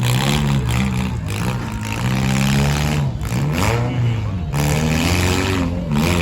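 Engines of four-cylinder demolition derby cars revving up and down, several at once, their pitch rising and falling repeatedly.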